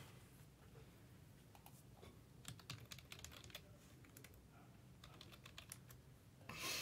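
Quiet typing on a computer keyboard: scattered short key clicks in small bunches, then a brief louder rustle near the end.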